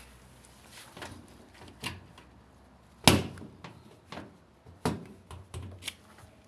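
Irregular knocks and clicks of objects being handled, about eight in all, the loudest about three seconds in.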